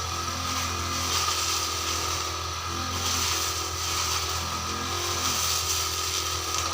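Petrol grass-cutting machine (brush cutter) running steadily, its small engine note rising and falling a little every second or so.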